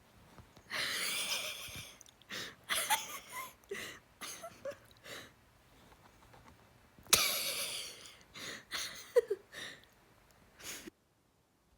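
Wheezing: irregular breathy gasps and snorts, with a long wheeze about a second in and a sharp one about seven seconds in, among shorter puffs and a few brief squeaky notes.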